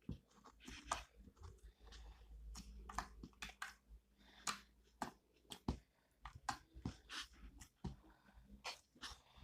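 Slime being squeezed and worked by hand, giving faint, irregular sticky pops and clicks, a few each second.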